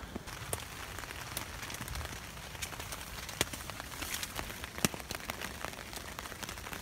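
Rain pattering on a tent's fabric: a steady hiss dotted with many small, irregular ticks.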